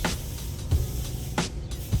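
Background music with a steady beat: a deep bass drum pattern with a sharp snare-like hit about every second and a half.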